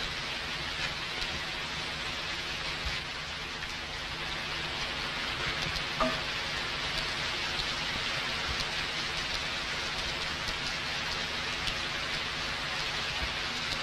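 Steady hiss like heavy rain, with faint crackles throughout and a brief pitched sound about six seconds in.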